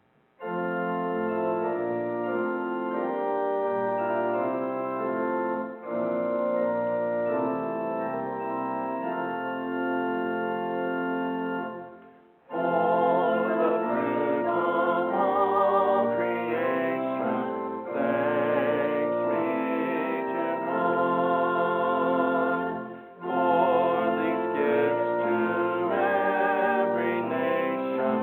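Organ playing held chords, then a singing voice with vibrato joins about twelve seconds in, with short breaks between phrases.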